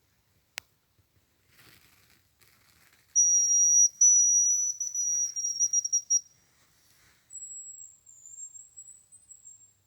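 Thin, very high whistles of a hazel grouse call: a long steady note with a brief break, then a higher note that wavers slightly. A single sharp click comes shortly before.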